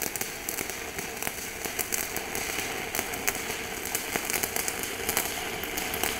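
Stick-welding arc of a rutile-cellulosic coated electrode running a vertical-down weld, crackling steadily with many fine pops. It burns somewhat spattery, as the cellulosic coating does.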